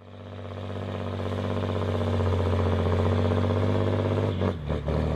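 Heavy engine running at a steady pitch, fading in at the start; the pitch drops about four and a half seconds in.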